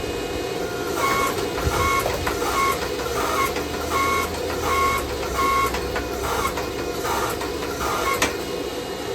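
Hand hammer striking hot steel on an anvil in an even rhythm: about a dozen blows, starting about a second in, each with a short metallic ring. A steady rushing sound runs underneath.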